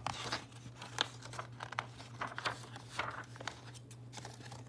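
Paper rustling and crinkling as a page of a picture book is turned and smoothed flat: a run of short crinkles and taps, the sharpest about a second in.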